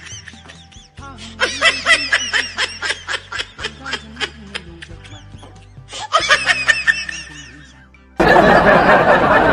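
A person laughing in quick fits over background music with steady low notes. About eight seconds in, a louder dense noise cuts in abruptly.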